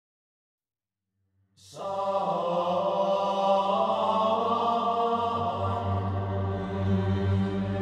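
Silence, then chant-like choral music begins about a second and a half in, with long held notes over a low drone.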